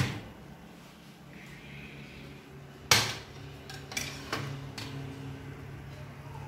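Metal oven wire rack clanking as it is pulled out of the oven. About three seconds in it is set down on a countertop with a loud clatter, followed by a few lighter knocks.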